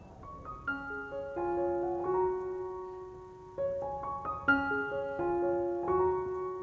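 Background piano music: a slow melody of single notes that ring on and overlap.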